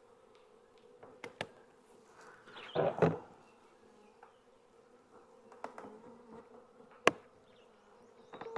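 Honey bees from an opened colony buzzing, a steady hum. A few sharp clicks and a louder rustle about three seconds in break over it.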